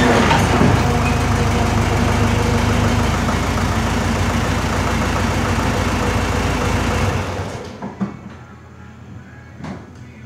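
Case 1845 skid steer engine running steadily for about seven and a half seconds, then shut off, while the machine is let down onto wooden blocks so its wheels lift off the floor. A couple of short knocks follow after it stops.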